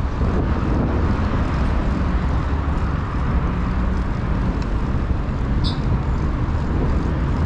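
Steady traffic noise from the nearby Acceso Tigre motorway, mixed with the rumble of riding a mountain bike along the road.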